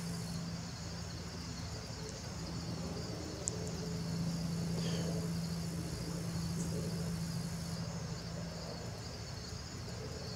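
Crickets chirping in a steady chorus over a low steady hum, which swells a little in the middle and then eases.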